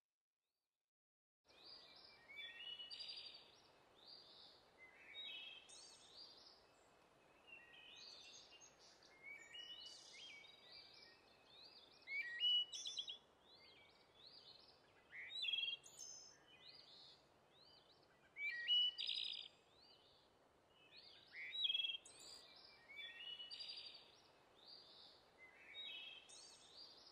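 Birdsong: several small birds chirping and trilling in short, quickly repeated phrases over a faint steady hiss. It starts suddenly about a second and a half in, after silence.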